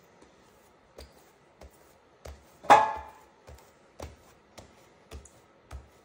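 Hands pressing and patting a sheet of sourdough bread dough on a countertop to push out air bubbles: soft thuds about twice a second, with one much louder thump about halfway through.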